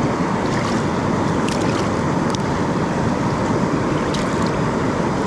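Creek water rushing steadily, the creek running high, with a few faint clicks over it.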